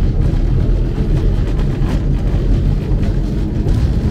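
A 1927 tram car running along its street tracks, heard from inside the car: a very loud, steady rumble with a few light knocks.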